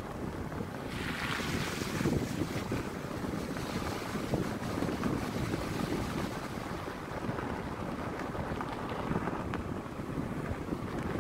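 Vehicle driving on a dirt and gravel road: a steady rumble of tyres and road noise mixed with wind noise, with a brief louder hiss about a second in.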